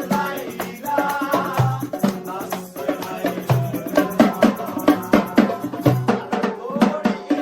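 Background music with a steady percussive beat, low bass notes and a melody over it.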